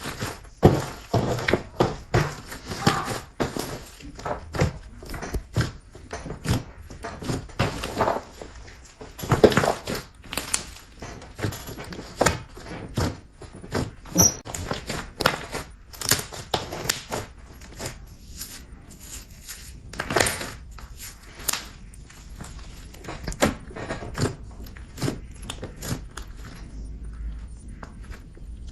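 Glossy slime being mixed and pressed by hand, making irregular sticky clicks and squelches that thin out near the end.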